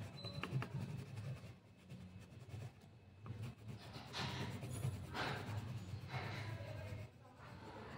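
Colored pencil scratching back and forth on paper as an area is shaded in, in faint uneven strokes.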